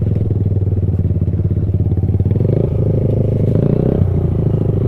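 125cc single-cylinder minibike engine running at low revs on a slow trail ride. The note is steady, with small throttle changes about two and a half and four seconds in.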